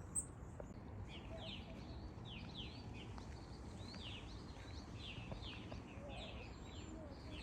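A small wild bird calling over and over in short, downward-slurred chirps, about two to three a second, over faint outdoor background noise. One sharp click comes right at the start.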